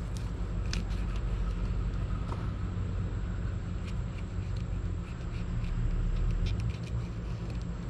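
Steady low rumble with faint, scattered soft clicks as a fillet knife cuts into a yellow jack on a cleaning table.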